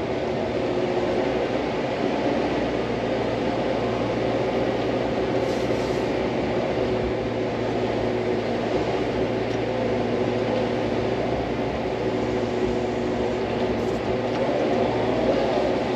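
Hydraulic excavator's diesel engine running at a steady speed, a constant drone.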